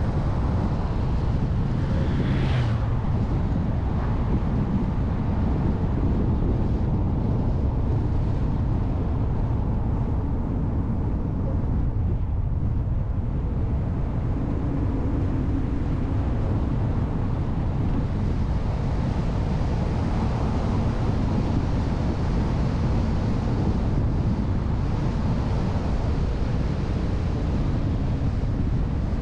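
Steady low rumble of a car driving on the road, heard from a car-mounted action camera, with wind buffeting the microphone. A brief louder rush about two and a half seconds in.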